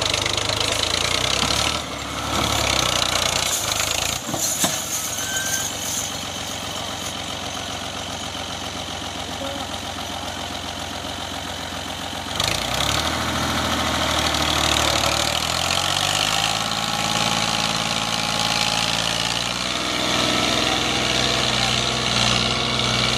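Ghazi diesel tractor engine running under heavy load while hauling a trolley piled with sugarcane. Its pitch steps up and down a few times in the second half.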